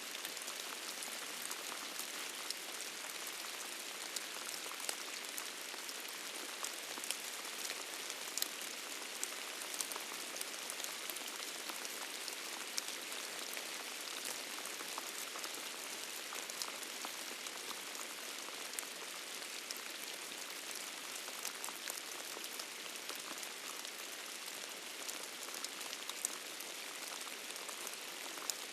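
Steady rain falling, with many separate drops ticking over an even hiss.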